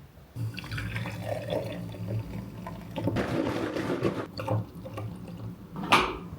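Water running and pouring, with a sharp knock near the end.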